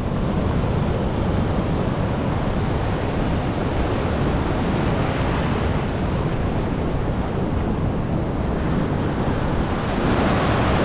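Pacific Ocean surf breaking and washing in over shallow water, a steady rushing wash heard from the shallows, a little louder near the end.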